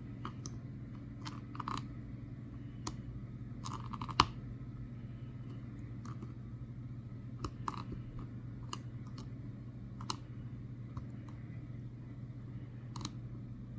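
Irregular light metallic clicks and scrapes of a hook pick working the pins of a Master Lock 6835 padlock held under tension, with one sharper click about four seconds in. A steady low hum runs underneath.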